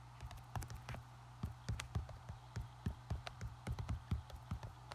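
Fingertips tapping on an iPad's glass screen while typing on the on-screen keyboard: irregular light taps, a few a second, over a faint steady low hum.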